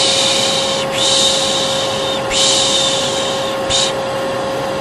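Hair dryer running steadily with a constant hum, under a person shushing "pşşş" in long hissing strokes about one a second, four in a row with a short one near the end. This is the soothing shush-and-white-noise used to calm a colicky baby.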